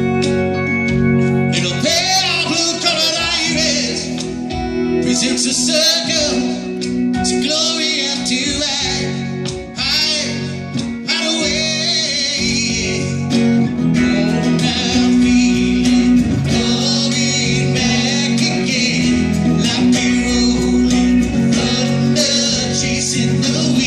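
Live rock music: two electric guitars playing sustained chords with a man singing.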